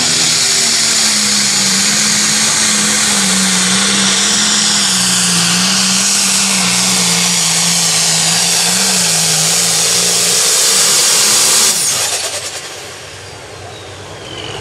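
John Deere Limited Pro Stock pulling tractor's turbocharged diesel engine running flat out under the load of the sled, its pitch wavering slightly as it pulls. About twelve seconds in the throttle is cut at the end of the pull: the engine drops off sharply and a high turbo whine falls away.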